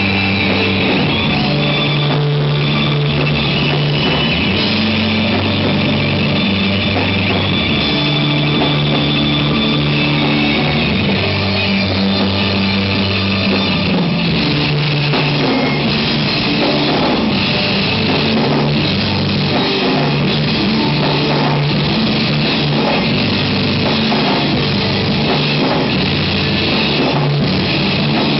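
Live rock band playing loud: electric guitars, bass and drum kit together, with held bass notes changing every few seconds.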